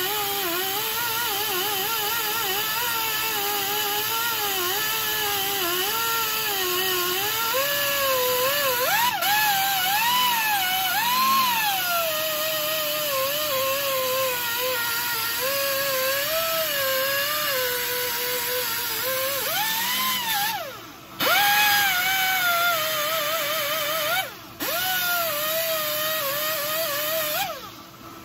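High, wavering squeal of metal rubbing on a part spinning in a manual lathe, as a hand-held metal piece is pressed against it. Its pitch wanders up and down with the pressure. It cuts out briefly twice and stops near the end as the piece is lifted away.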